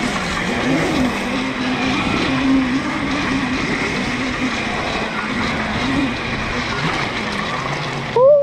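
Dirt bike running, its revs rising and falling. Just before the end the sound changes abruptly to a clear tone that rises and falls.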